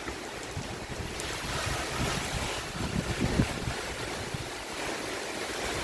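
Strong gusty wind from a hurricane's outer band buffeting the microphone, with a rushing hiss that swells about a second in and eases off again.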